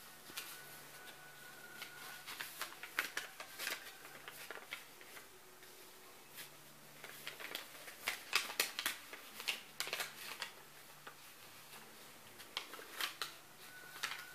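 Scrap of paper crinkling and crackling as a cat paws and pounces on it, in three bursts of quick crackles, about two seconds in, about eight seconds in and again near the end, over a faint steady hum.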